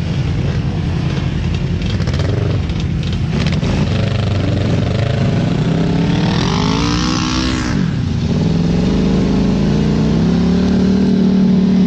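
Quad bike engine running under the rider. It revs up and eases back off between six and eight seconds in, then climbs steadily in pitch as it accelerates near the end.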